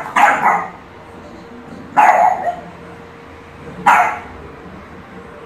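Boston terrier barking: three short, loud single barks, about two seconds apart.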